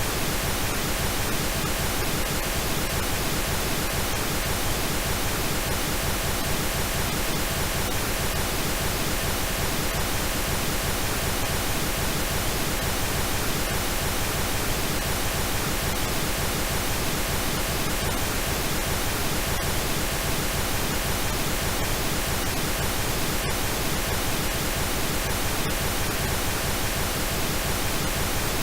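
Steady synthetic pink noise: an even, unchanging hiss across the whole range.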